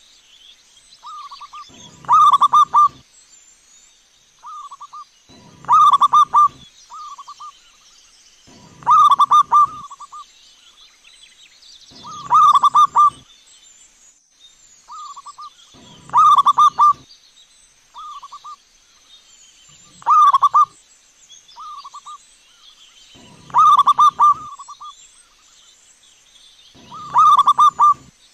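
Zebra dove (perkutut) singing: a staccato cooing phrase repeated about every three and a half seconds, each loud rolling phrase led by a shorter, quieter note.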